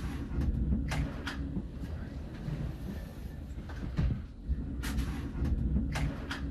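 Storm wind buffeting a phone microphone as a heavy low rumble, with a few sharp clicks and knocks scattered through it.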